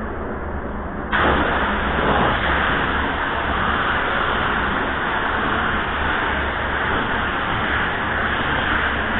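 Gravity-feed paint spray gun hissing steadily as compressed air atomises paint onto a car bumper cover; the hiss gets louder about a second in, over a low steady hum.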